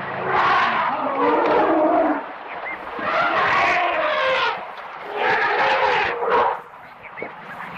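Animal calls: three loud, pitched cries, each lasting one to two seconds, with short pauses between them.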